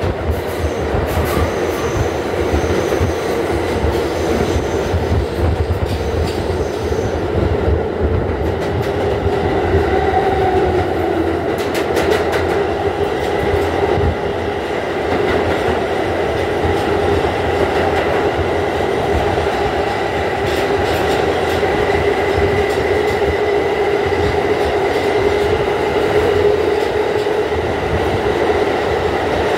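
R160A New York City subway car running at speed through a tunnel, heard from inside the car: a steady rumble and rush of wheels on rail with a held whining tone. A few sharp clicks of the wheels over rail joints come around the middle.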